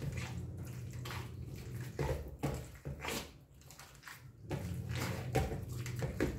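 Wooden pestle pounding and mashing soaked rice in a steel pot: a series of dull, wet thuds at uneven spacing, roughly one or two a second. The rice is being ground into dosa batter.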